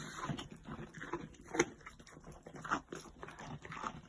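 A moose calf chewing a carrot: irregular wet crunches as it bites and munches, a couple of them sharper and louder than the rest.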